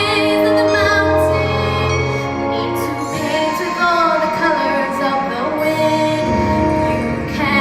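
A young girl singing a song with instrumental accompaniment, holding long notes with vibrato.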